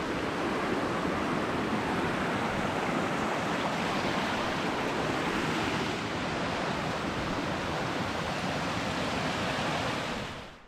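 Steady rushing of a creek's flowing water, which fades away quickly near the end.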